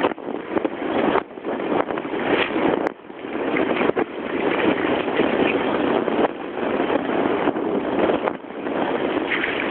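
Steady rush of a shallow river running over stones, with a Border collie splashing as it runs through the water.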